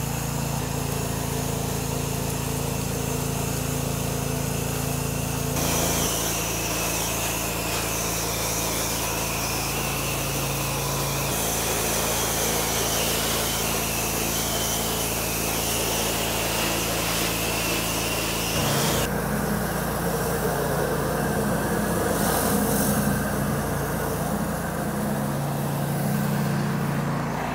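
Pressure washer engine running steadily under the hiss of spraying water. The mix shifts abruptly three times.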